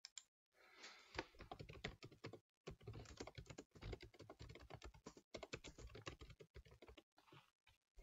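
Computer keyboard being typed on, quietly: a quick run of keystrokes that starts about half a second in, with a few brief pauses, as a short sentence is typed.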